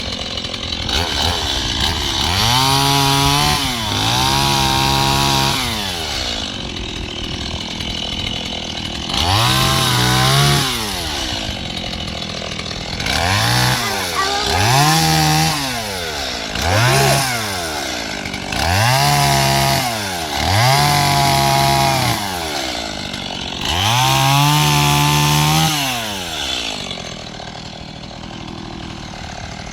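Stihl MS170 two-stroke chainsaw revved to high speed about nine times, each burst lasting one to two seconds with the pitch rising and falling, dropping back to a lower running speed in between. Near the end it settles to a quieter idle.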